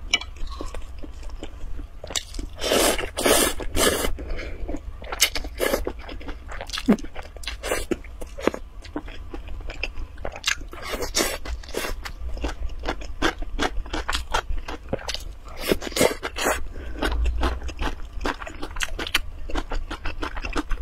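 Close-miked eating: noodles slurped from broth and chewed, with many short sharp clicks and scrapes of chopsticks against the glass bowl.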